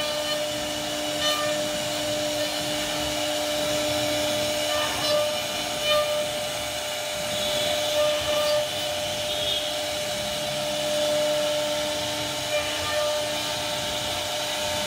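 CNC router spindle whining steadily as its bit cuts relief carving into solid wood, with a hiss of cutting and a few brief louder moments.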